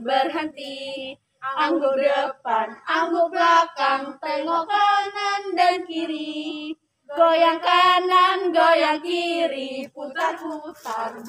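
Young women singing an ice-breaking action song together, in short phrases with a couple of brief pauses.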